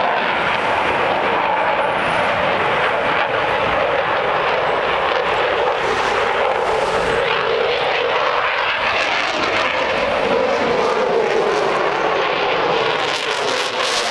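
Jet fighter's engines making a loud, steady jet noise during a display flight, with a sweeping, phasing quality near the end as the jet comes overhead.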